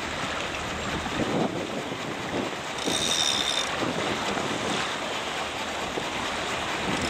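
Wind blowing across the microphone over choppy water, with irregular splashes and lapping of small waves.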